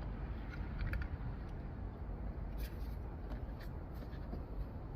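Jump starter cable clamps being handled at a car battery: a few faint, scattered clicks over a steady low rumble.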